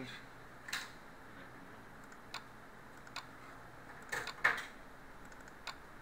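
A few scattered sharp clicks and light knocks over faint room hiss, the loudest pair about four seconds in.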